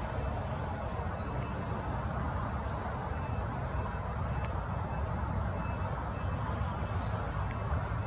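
Steady low rumble of outdoor background noise, with a few faint, brief high bird chirps scattered through it.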